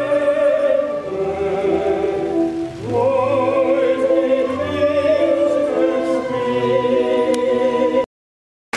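Operatic singing with orchestral accompaniment, with a long held note sung with vibrato from about three seconds in. The sound cuts off suddenly near the end for less than a second.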